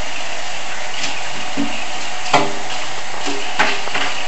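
A kitchen sink being cleaned out: a steady hiss, with two ringing metallic clanks in the sink, the first a little past halfway and the second a second or so later.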